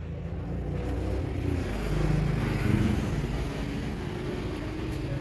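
Road traffic: a motor vehicle's engine rumble that swells about two seconds in and eases off again.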